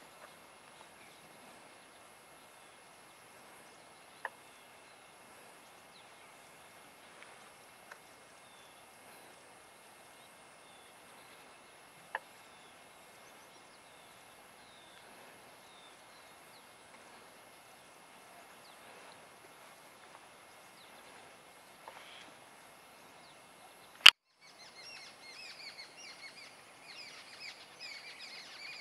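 Quiet outdoor ambience with faint bird chirps and a few scattered sharp clicks. A loud click comes about 24 seconds in, and after it a busier stretch of quick bird chirps sets in.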